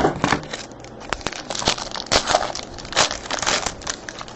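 Crinkling and crackling of a trading-card pack's wrapper as it is torn open and handled, in many short irregular crackles.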